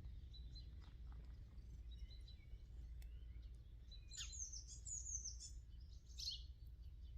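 Songbirds singing, with a quick run of high notes about four seconds in and another short phrase near the end, over a low steady outdoor rumble.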